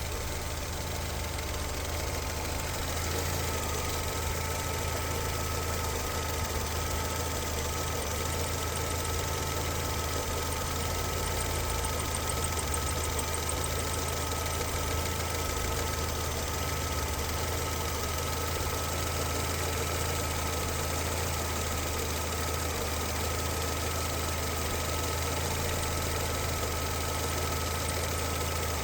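Engine running steadily, with a steady high whine setting in about three seconds in; the owner finds the noise strange.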